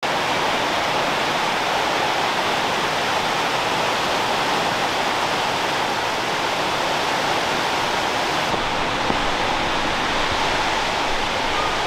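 Steady rushing water, like a stream or small waterfall, running evenly without a break.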